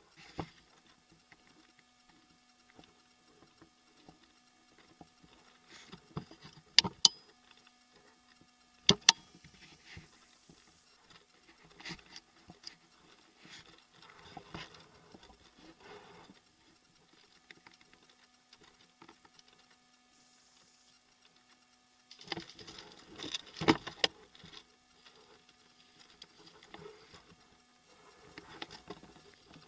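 Scattered rustling and crunching movement noise with a few sharp clicks or knocks, the loudest two close together about seven seconds in and another about nine seconds in, over a faint steady hum.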